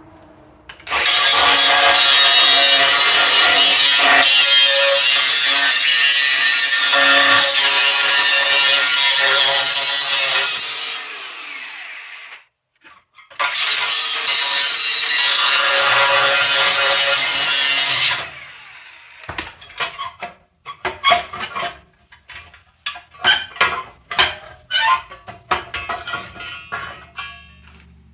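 A power tool cutting a metal part salvaged from a combine, running loud and steady for about ten seconds, stopping, then cutting again for about five more. After that comes a string of sharp knocks and clanks.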